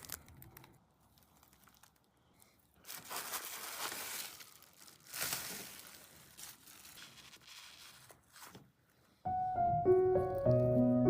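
Irregular crinkling and scraping handling noises in short swishes, then piano music starts abruptly about nine seconds in.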